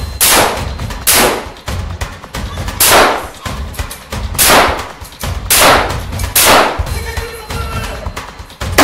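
Handgun shots in a shootout: about seven sharp shots at uneven gaps of one to two seconds, each with a long reverberant tail, over a low music bed.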